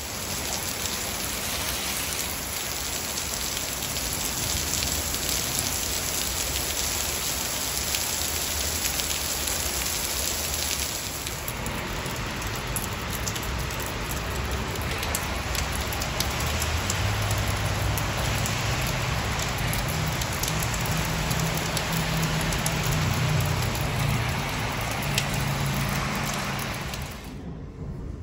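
Heavy rain falling steadily and pattering on surfaces, with a low rumble joining in partway through. The sound drops away sharply near the end.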